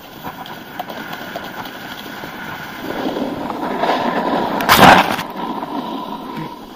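Snowboard sliding and scraping over packed snow, with wind rushing on the microphone; the noise builds through the middle and peaks in a short, loud burst about five seconds in.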